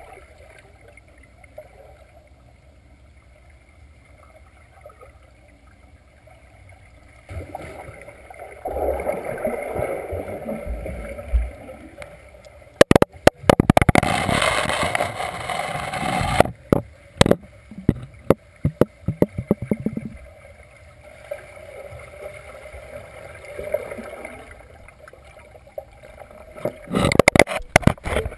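Swimmers heard underwater in a pool: muffled rushing and gurgling of strokes, kicks and bubbles. About halfway through there is a loud stretch of splashing with many sharp clicks close to the microphone, and near the end another burst of clicks and splashing as a swimmer with hand paddles passes right by.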